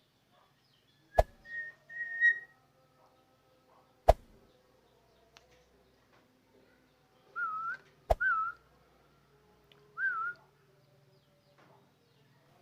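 Short, clear whistled notes: a pair of level whistles early on, then three brief whistles with a quick wobble in pitch, spread over the last half. Three sharp, loud clicks cut in between them.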